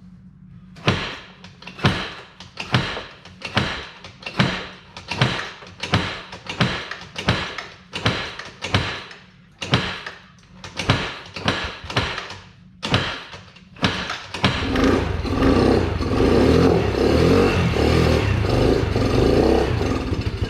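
Can-Am engine, drowned in water, turning over in slow, even strokes a little over one a second, then catching about fourteen seconds in and running roughly on fuel fed straight into the intake.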